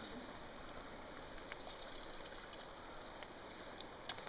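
Faint, steady flow of river water, with a few small clicks, the sharpest near the end.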